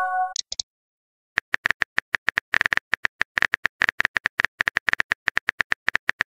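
Synthetic phone-keyboard typing clicks from a texting-story app, a fast run of several taps a second starting about a second and a half in. Before it, a short electronic chime trails off, then two brief high blips.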